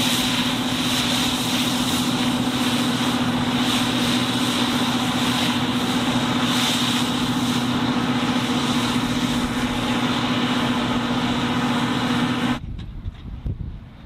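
John Deere W540 combine harvester running steadily while harvesting barley: a loud, even machine noise with a constant hum. It cuts off abruptly about twelve and a half seconds in, leaving only faint noise.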